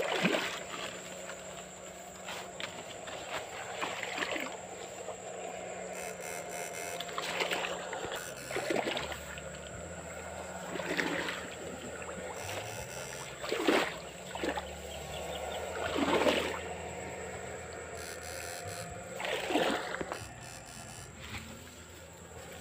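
Electrofishing poles dipping and sweeping through shallow canal water, with short splashes every two to three seconds, over a thin steady high tone.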